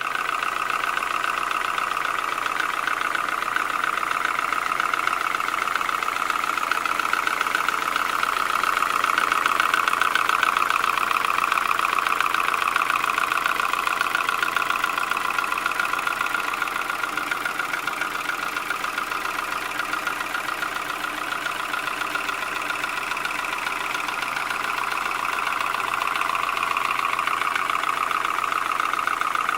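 Opel Z18XE 1.8-litre four-cylinder petrol engine idling steadily at about 785 rpm with a fast, diesel-like tapping. The engine has just been rebuilt with new piston rings, honed cylinders and new valve stem seals, and the owner does not know what causes the tapping.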